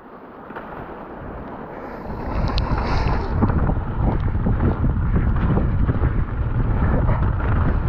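Wind buffeting the microphone of a bike-mounted camera, with mountain bike tyres rolling over a wet, muddy gravel trail and the bike rattling over small bumps. The rushing grows louder about two seconds in as the bike picks up speed.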